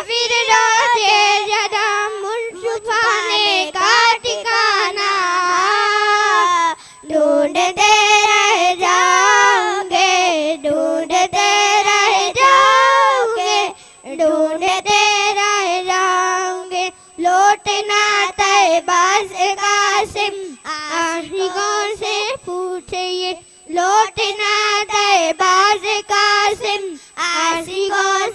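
A young girl singing a naat (devotional poem in praise of the Prophet) solo into a microphone, with no accompaniment. She sings in long held phrases with brief pauses for breath between them.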